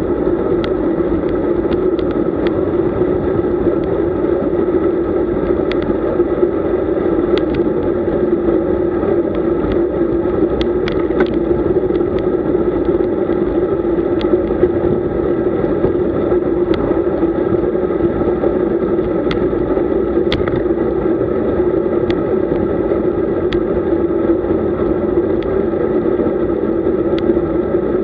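Steady wind and road noise from a camera riding along on a road bike, with small sharp clicks or rattles scattered through it.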